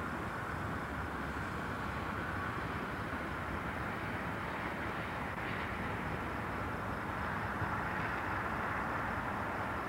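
Steady rushing outdoor background noise, unchanging and without distinct events.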